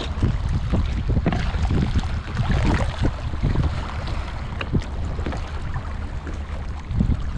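Wind buffeting the microphone over choppy sea, with water slapping irregularly against the kayak's hull.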